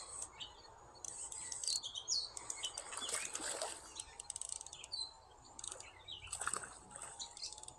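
Birds chirping and calling in short high notes, with a brief splash about three seconds in as a hooked smallmouth bass thrashes at the surface.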